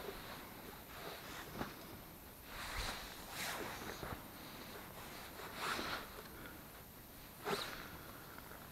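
Faint, scattered scuffs and rustles of a person moving about and handling things, a second or two apart.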